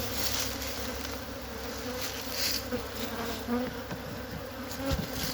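Swarm of honeybees buzzing around an opened hive: a steady, many-voiced hum of wingbeats. A brief low knock of the hive being handled comes near the end.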